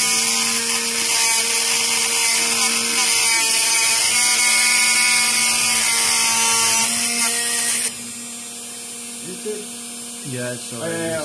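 Small always-on spindle motor of a 3D-printer milling attachment driving a 1 mm bit into a board: a loud, steady high hiss of cutting over a humming motor tone. About eight seconds in, the hiss stops abruptly and only the motor's quieter steady hum goes on.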